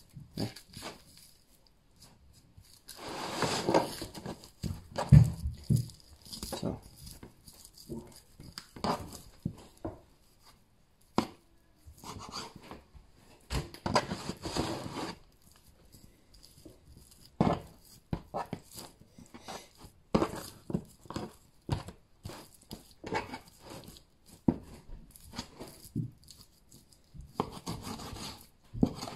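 Knife cutting through raw boned leg of lamb on a cutting board as the muscles are separated, with the meat pulled apart and handled: irregular soft rubbing and short clicks, and a heavier thump about five seconds in.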